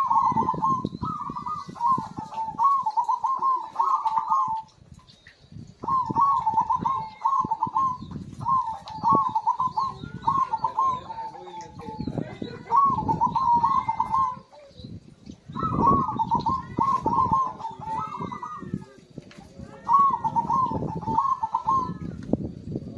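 Zebra dove (perkutut) in full song, cooing in about seven repeated phrases of quick rolling notes, with short pauses between them.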